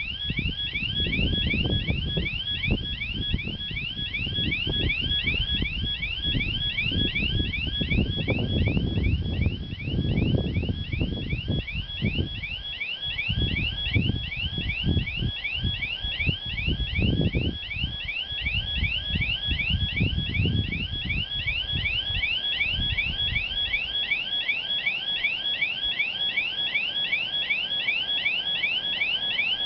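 Level-crossing warning alarm sounding: a rapid, evenly repeating series of short high electronic tones, the signal that the crossing is activated and a train is approaching. Underneath, an irregular gusty low rumble fades out about two-thirds of the way through.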